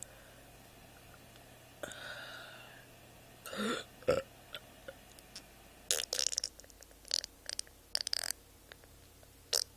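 A person burping: one short, loud burp about a third of the way in, followed by a sharp click. A string of short scratchy noises follows near the end.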